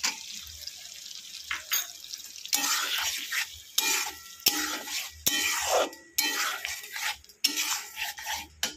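Steel spatula stirring and scraping wet poppy-seed paste and fried ridge gourd in a hot metal kadai, with the food sizzling. The scraping strokes start about two and a half seconds in and come repeatedly, with sharp clicks of metal on the pan.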